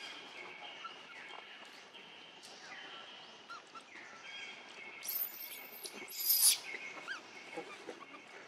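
Forest ambience with faint steady high insect-like tones and small bird chirps. Two short harsh sounds come about five and six seconds in, the second louder.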